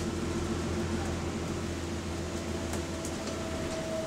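Steady drone of a bus's engine and running gear heard from inside the passenger saloon while it drives. A higher steady whine comes in about three seconds in, with a couple of faint ticks around the same time.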